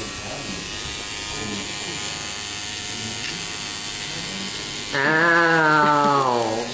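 Coil tattoo machine buzzing steadily as the needle works into the skin. About five seconds in, a long drawn-out human voice sounds over the buzz, falling in pitch.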